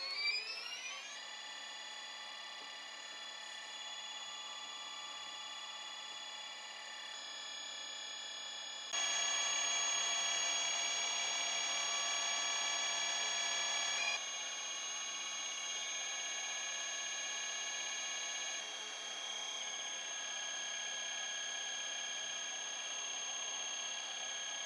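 Stepper motor (17HS4401) driving a pickup coil winder, spinning the bobbin as it winds magnet wire. It whines in several steady tones after rising in pitch over the first second, then gets louder about nine seconds in and shifts pitch a few more times.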